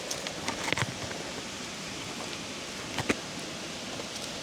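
Steady outdoor hiss with a few short, sharp knocks, about a second in and twice near the three-second mark: the small RC crawler's tires and plastic chassis knocking on rock.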